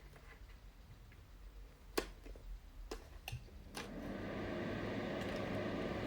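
A few sharp clicks, then a mini ceramic fan heater's fan starting about four seconds in, rising over about a second to a steady rush of air with a faint hum.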